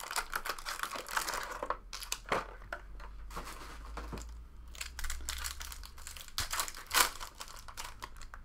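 Trading card packaging being handled and opened by hand: crinkling and tearing with scattered taps and clicks, the sharpest about seven seconds in.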